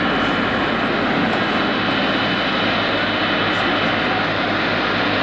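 Jet aircraft engines running at a steady level, a dense rushing noise with a thin high whine above it.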